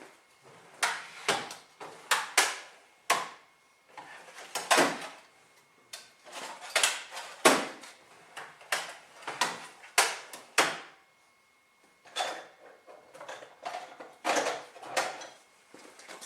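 Hand tools and metal engine parts clinking and knocking, a string of irregular sharp strikes with short ringing tails, as parts are worked loose from the engine.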